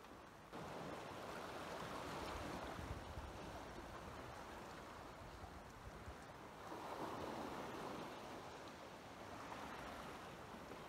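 Small waves washing against rocks at the shoreline: a steady rush of water that swells and eases a few times.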